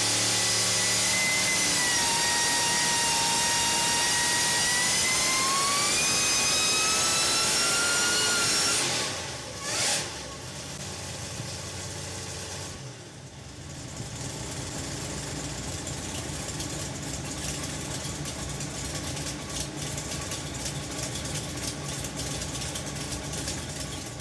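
Engine running with a high whine that holds steady and then rises in pitch, cutting off suddenly about nine seconds in; after a short burst, a quieter, lower engine sound carries on steadily with scattered clicks.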